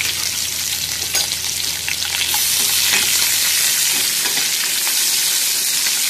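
Chopped onions and garlic sizzling in hot oil in a kadai, with a spoon stirring them and now and then clicking against the pan.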